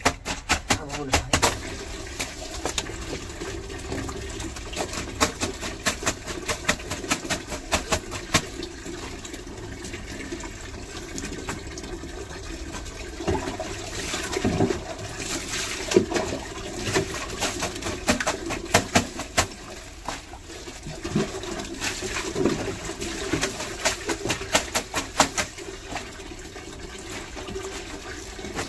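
Clothes being washed by hand on a wet concrete floor: repeated scrubbing and slapping of soapy wet cloth, with water splashing and a tap running into a tub.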